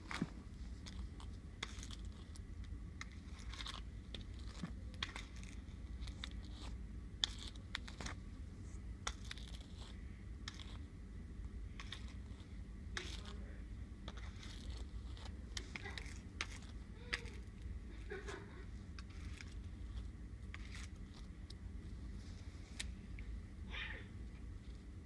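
Scattered soft clicks, rustles and crinkles of hands handling a doll and its long synthetic hair close to the microphone, over a steady low rumble.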